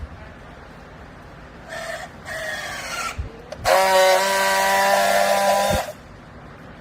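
A machine whining in two bursts: a shorter, weaker one, then a louder one about two seconds long that starts and stops abruptly.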